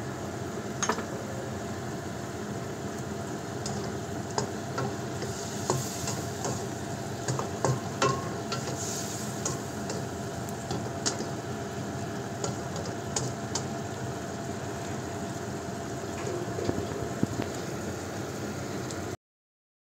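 Yardlong beans sizzling in a wok while a spatula stirs and tosses them, with repeated scrapes and clicks against the pan. The sound cuts off suddenly near the end.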